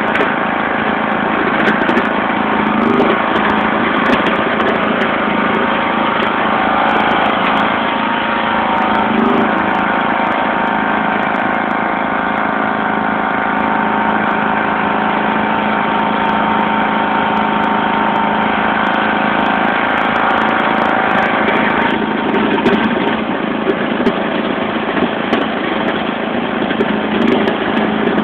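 John Deere LX176 lawn tractor's 14 hp OHV engine running steadily as the tractor drives along plowing snow.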